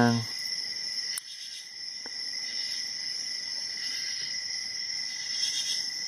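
Crickets chirping steadily in the background, with a single faint click about a second in.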